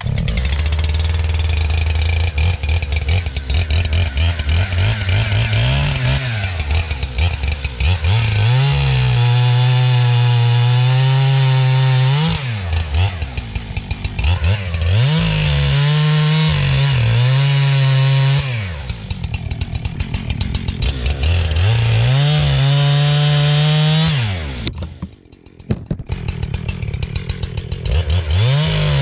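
Gas chainsaw revved up to full throttle and held there, then dropped back toward idle, several times over, as when cutting up felled trees.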